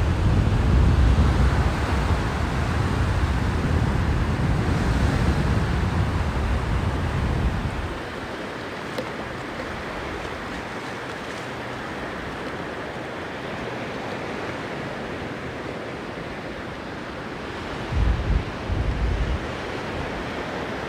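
Sea surf washing on a sandy beach, a steady wash of waves. Wind buffets the microphone with a low rumble for about the first eight seconds, and twice more briefly near the end.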